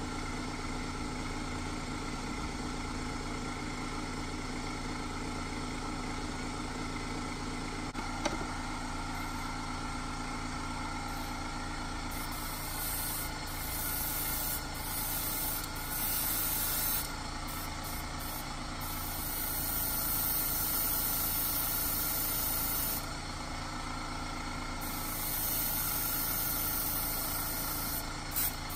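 A small motor hums steadily; from about twelve seconds in, an airbrush sprays paint in repeated hissing bursts of one to four seconds each, the longest near the middle, with a few very short puffs at the end. A single click sounds about eight seconds in.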